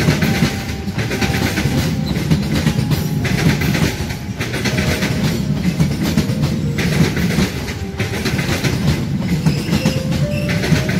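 Economy-class passenger coaches of a KAI local train rolling past close by: steel wheels on the rails give a loud, steady clattering rumble that swells and eases every few seconds as each coach goes by.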